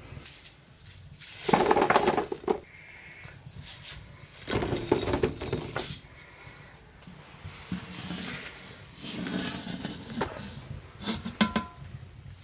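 Metal skimmer and fried khajoor pastries clattering and scraping on a metal tray, in several separate bursts with a few light clinks near the end.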